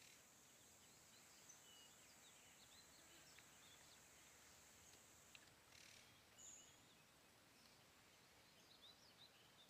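Near silence: faint woodland ambience of scattered small bird chirps over a steady high hiss.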